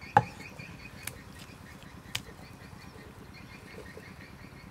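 Cleaver chopping through raw chicken onto a wooden chopping board: one sharp chop just after the start, then two lighter ones about a second apart. A steady chirping, about four a second, goes on behind.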